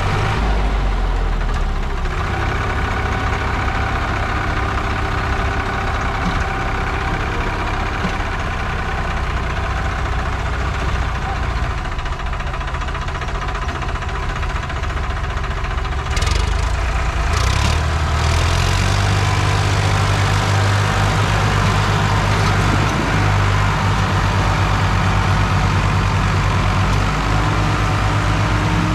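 Diesel tractor engines running. About two-thirds of the way in the engine note grows louder and heavier as the front tractor takes the strain, towing a stuck tractor and its soil-laden trolley.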